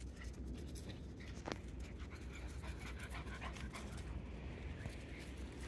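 Cockapoo puppies panting and scuffling as they play, with many small rustling clicks.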